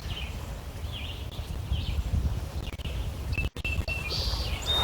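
Wind buffeting the microphone in a steady low rumble, with birds chirping and calling through it. The sound drops out for an instant about three and a half seconds in.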